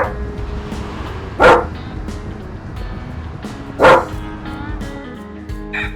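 Background music with a dog barking three times, the barks a second or two apart and louder than the music.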